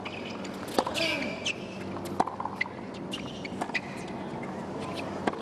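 Tennis rally on a hard court: the ball cracks off the rackets about every second and a half, with short high-pitched sneaker squeaks on the court between the shots.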